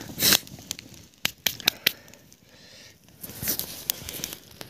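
Small campfire of dry twigs and brush crackling, with several sharp pops between one and two seconds in and louder spells of crackling near the start and again toward the end.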